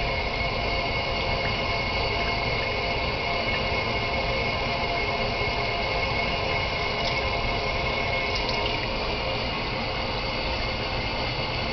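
Water running steadily from a sink tap.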